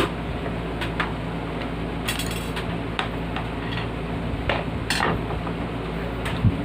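Scattered light clicks and clinks of box-fan parts and tools being handled during repair, with a short scraping rustle about two seconds in, over a steady low hum.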